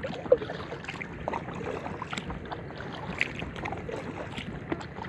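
Inflatable kayak being paddled: water splashing and dripping from the paddle blades, with a sharp knock about a third of a second in.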